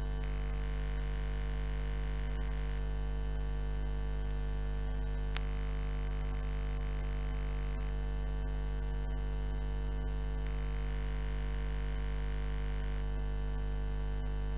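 Steady electrical mains hum with a buzz, typical of a stage sound system left running with nobody speaking; a single faint click about five seconds in.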